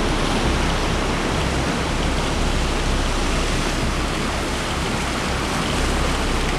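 Surf breaking on a rocky shore, a steady loud rush with a low rumble underneath.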